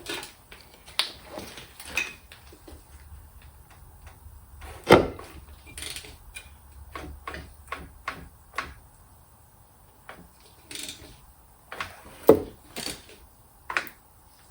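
Scattered clicks and clunks of metal tools and engine parts being handled during a measurement. The two sharpest knocks come about five seconds in and about twelve seconds in.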